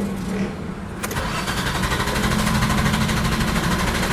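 The starter of a hard-starting 1997 Nissan Cefiro cranking the engine: a click about a second in, then the engine turning over steadily and evenly. The even cranking is what the mechanic takes as a sign that compression is sound.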